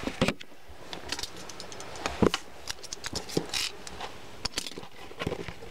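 Scattered taps, scrapes and short rustles of a cardboard box being handled and turned over on a table.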